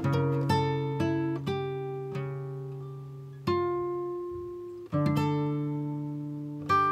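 Background music: a slow acoustic guitar piece of plucked chords and single notes, each left to ring out and fade before the next.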